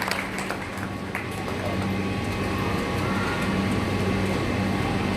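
Hand-clapping applause dies away in the first second, leaving a steady low hum.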